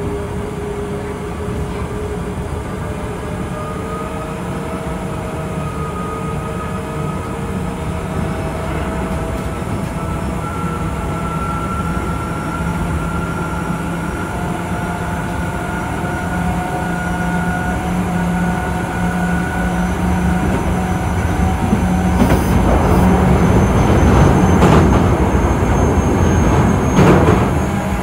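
Osaka Metro 66 series train with a Toshiba IGBT VVVF inverter, heard on board while running: the inverter and traction motor whine slowly rises in pitch as the train gathers speed, over a steady wheel-and-rail rumble. Near the end the track noise gets louder, with some clattering.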